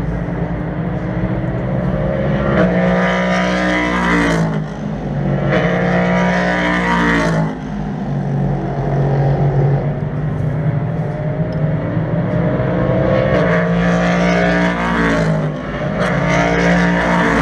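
LMP3 prototype race cars accelerating out of a corner at full throttle. Their engine notes climb and then drop sharply at each upshift, several times over, with other cars on track heard throughout.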